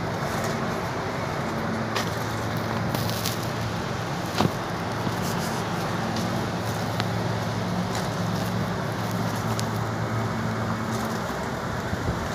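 Steady hum and rush of rooftop air-conditioning machinery running, with a few faint clicks.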